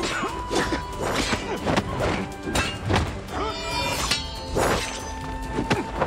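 Sword-fight sound effects: repeated whooshes, thwacks and crashing hits in quick succession, about two a second. Background music runs underneath with a long held note.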